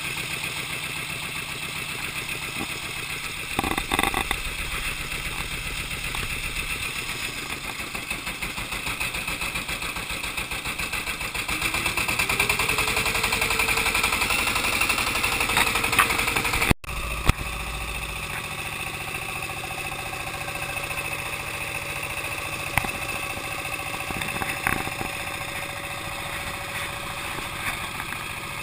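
River boat's engine running steadily, heard from on board. About twelve seconds in it rises briefly in pitch and gets louder, then breaks off abruptly partway through and carries on.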